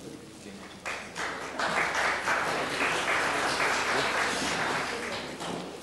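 Audience applauding: a few scattered claps about a second in, swelling into full applause that dies away near the end.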